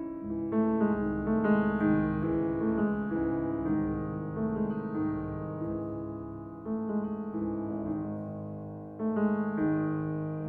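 Background keyboard music, a piano-like melody of held notes changing every half second or so.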